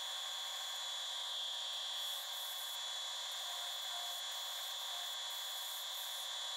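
Sycamore spatula blank being sanded against a 5-inch sanding disc spinning on a wood lathe, its edges being profiled: a steady rubbing rasp with a high whine running through it.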